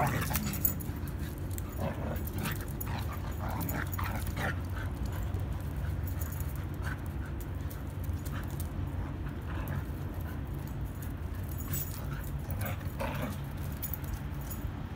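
Dogs playing and wrestling, giving short vocal sounds now and then, most in the first few seconds and again near the end, over a steady low background hum.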